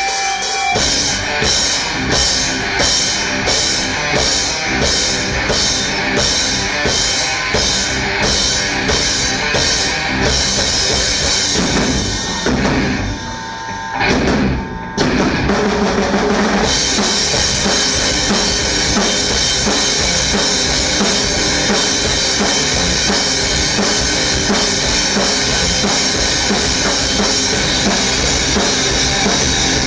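Groove metal band playing live, with the drum kit's bass drum and cymbals to the fore: hits land about twice a second, the music drops back briefly about twelve seconds in, then the full band comes back in heavier.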